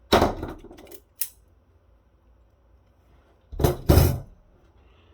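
Hard clattering and knocks of small metal and plastic floppy-drive parts being handled: a rattle at the start, a single click just after, then two knocks close together later on.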